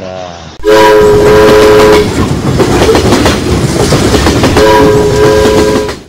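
Train sound effect: a multi-tone train horn sounds for over a second, the noise of a train running on the rails follows, and a second horn blast comes near the end. The sound starts suddenly and cuts off sharply.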